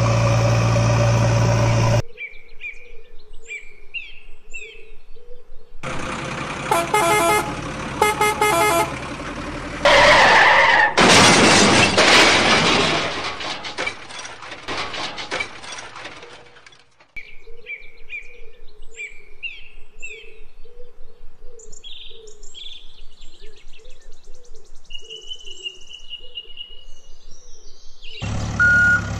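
A run of vehicle sounds over birdsong. An engine runs at the start, a horn gives several short honks, and a loud stretch of rushing noise follows. Birds then chirp in short runs of three.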